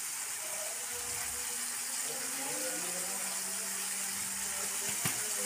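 Red balado chili sauce sizzling in a wok on a gas stove: a steady high hiss, with a faint low hum coming in about halfway through.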